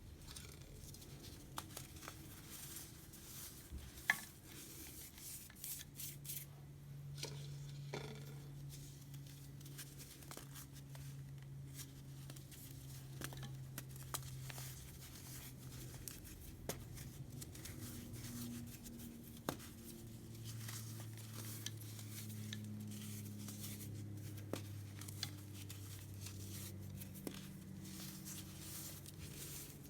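Baking soda chunks fizzing and crackling in vinegar: a faint hiss with many small scattered clicks and pops, one sharper click about four seconds in.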